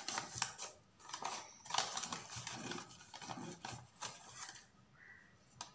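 Butter paper (baking parchment) crinkling and rustling as hands press it into the sides of a cake tin to line it, in irregular bursts that die down about four and a half seconds in, with a single sharp click near the end.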